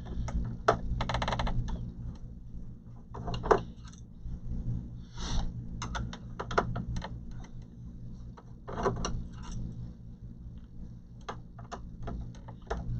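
Small hard clicks, taps and clatter of screws and plastic panels being handled as the base and back cover of an all-in-one desktop computer are taken apart, with a quick rattling run of clicks about a second in. A low steady hum runs underneath.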